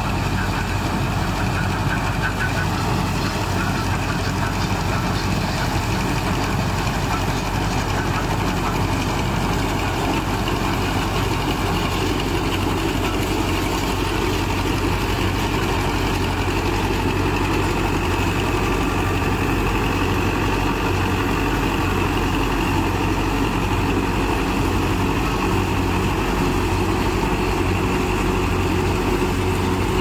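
Farmtrac 6055 tractor's 55 hp four-cylinder diesel engine running steadily, together with the tractor-mounted combine harvester it drives, in a continuous unbroken mechanical drone.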